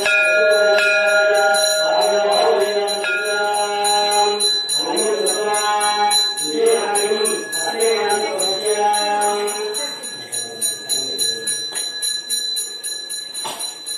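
Temple handbell rung rapidly and without a break, a fast even jingling, over a ringing bell tone that swells and dies away several times. The lower ringing fades out about ten seconds in, leaving only the fast jingling.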